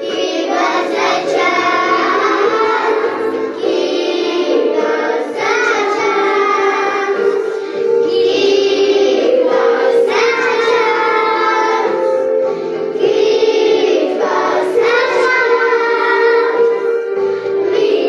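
A group of young children singing a song together, with steady instrumental backing music underneath.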